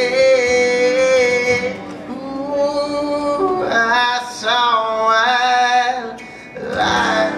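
A man singing long, drawn-out notes into a microphone over an acoustic guitar. The phrases break off briefly near the end, then one more sung phrase comes in, as the song's final lines are sung.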